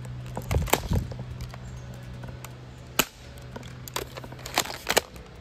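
Double Eagle M56B tri-shot spring airsoft shotgun being pumped and fired: a string of sharp snaps and clacks at uneven intervals. A low steady hum stops about three seconds in.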